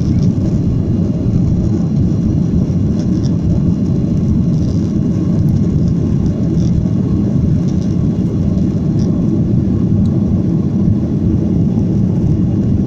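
Steady low rumble of engine and airflow noise heard inside the cabin of a Boeing 737-800 in flight.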